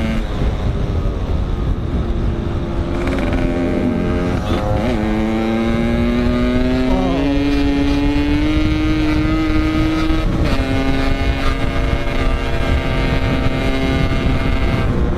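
Yamaha RX-King two-stroke motorcycle engine under way, its pitch climbing in each gear and dropping sharply at upshifts about four and a half, seven and ten seconds in. Wind rumbles on the microphone underneath.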